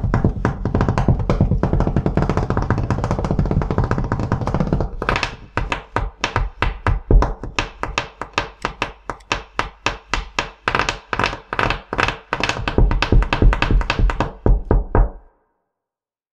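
Hands drumming with fingers and knuckles on a wooden tabletop: a fast, dense roll for about five seconds, then separate knocks at about four to five a second, stopping suddenly about fifteen seconds in.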